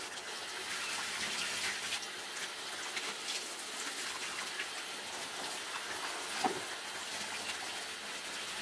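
Handheld shower head spraying water over a cocker spaniel's wet coat: a steady hiss of running water, with one short sharp knock about six and a half seconds in.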